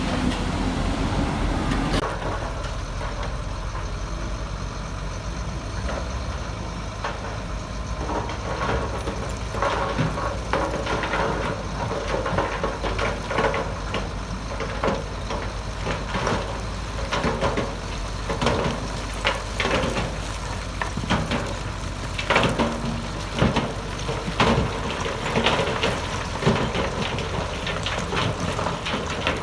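Diesel engine of heavy earthmoving machinery running steadily, with frequent sharp knocks and clattering of stones from about eight seconds in.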